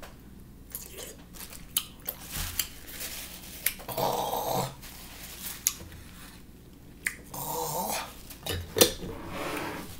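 Someone eating a pickle: crunching bites and chewing. There are a few sharp clicks and two short rustles, about four and seven seconds in, of a paper napkin being handled.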